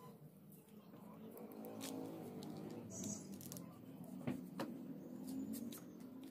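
Faint background voices with a few light, sharp clicks and taps.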